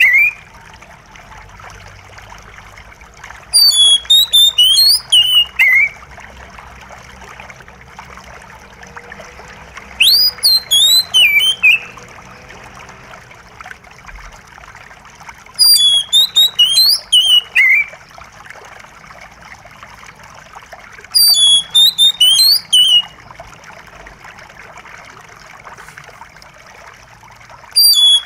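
Oriental magpie-robin singing short bursts of rapid whistled notes that sweep down in pitch, about every five or six seconds, over a steady trickle of running water.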